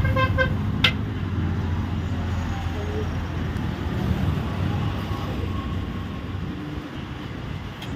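Road traffic passing the stall: a low, steady engine rumble that fades away over the last few seconds, with one sharp click just under a second in.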